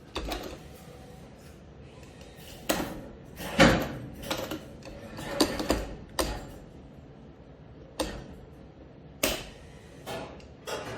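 Claw crane machine at work: a string of irregular clunks and knocks, about eight or nine, from the claw and the prize boxes it shoves, over a low steady machine background.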